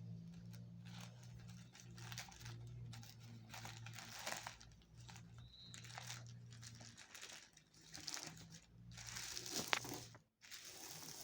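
Tissue paper crinkling and rustling in irregular bursts as a folded paper boat is pulled open, with one sharper crackle near the end. A faint steady low hum runs underneath.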